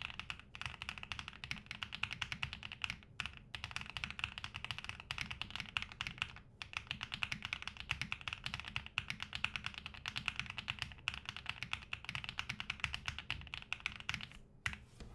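Steady fast typing on a TB65-F mechanical keyboard with HMX Bamboo switches, aluminium case and foam: a dense run of key strokes with two short pauses, stopping just before the end.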